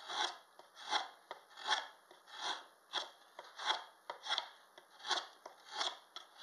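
Draw knife shaving a wooden spoon blank in short slicing strokes, about nine in a row at a steady pace of roughly one every 0.7 seconds, each a brief scrape of the blade through the wood.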